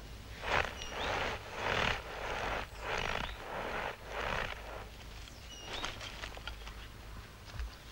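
Footsteps crunching through snow, about five heavy steps in the first four and a half seconds, then quieter. A few short, high bird chirps come near the start and again around six seconds in.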